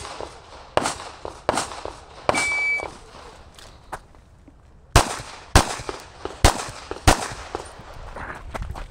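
Shot timer's start beep, one short steady high tone, followed about two and a half seconds later by pistol fire: four shots in about two seconds. A few fainter knocks come before the shots.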